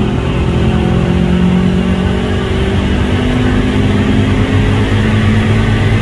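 Subaru Forester 2.5 XT's turbocharged EJ255 flat-four at full throttle under load on a chassis dynamometer, pitch climbing steadily as the revs rise toward the redline. Boost is about 0.75 bar, and the exhaust runs without its rear silencer.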